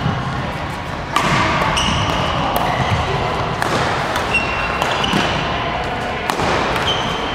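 Badminton rally: rackets striking the shuttlecock in a few sharp cracks, with short high squeaks of court shoes on the floor, echoing in the hall.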